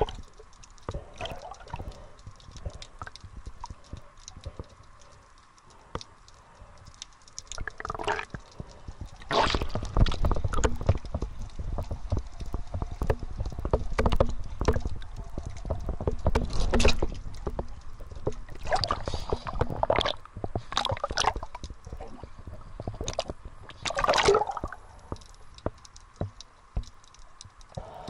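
Water gurgling and sloshing against a camera held underwater while snorkelling, with many small clicks and knocks. It grows louder, with a low rumble, from about ten to seventeen seconds in.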